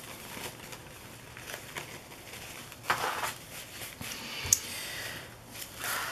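Paper napkins rustling and crinkling as they are unfolded and handled, with a single sharp tap about four and a half seconds in.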